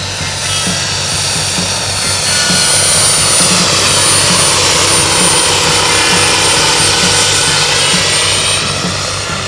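Turbine-powered radio-controlled scale model UH-1C Huey helicopter flying past: a steady high turbine whine over rotor and engine hiss, swelling to its loudest a few seconds in as it passes closest, with a sweeping whoosh, then easing off near the end as it climbs away.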